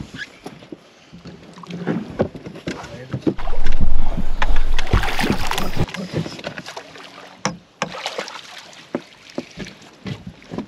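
Knocks, clatter and rustling as a landing net and its pole are handled on a boat and a lake trout is netted from the water, with a loud rushing, rumbling stretch of about two and a half seconds in the middle.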